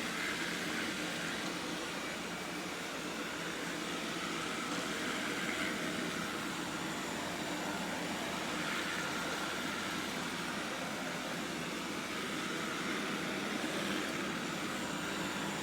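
Roborock S8 robot vacuum running with a steady, even whirring hum.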